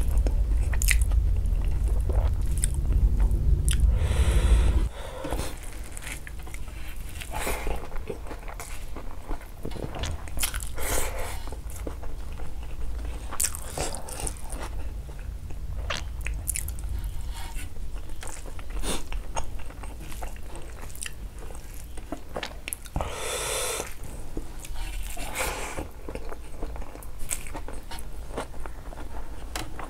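Close-miked chewing and mouth sounds of someone eating rice and curry by hand, a run of short scattered clicks with a few louder noisy stretches. A low hum runs under the first five seconds and then stops.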